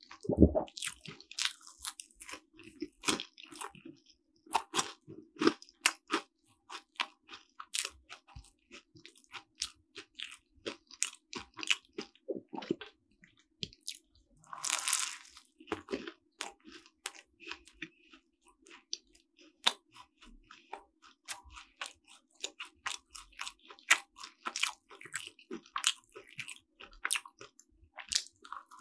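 Close-miked biting and chewing of a flaky cream-filled croissant: irregular crisp crackles of the pastry with each bite and chew, with one denser crunch about halfway through.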